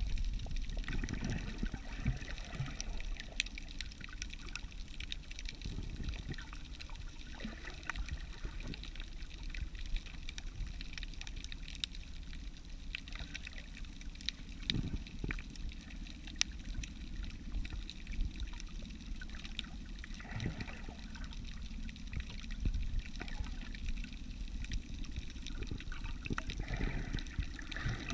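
Underwater sound picked up by a camera held below the surface: a muffled low rumble of moving water, with scattered faint clicks and a few brief swells.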